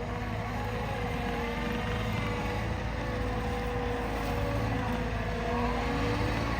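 Cat 299D2 compact track loader's diesel engine running steadily while working, its pitch wavering slightly and the sound growing gradually louder.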